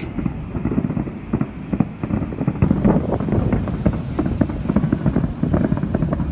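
Wind buffeting the microphone: a loud, uneven, continuous low rumble.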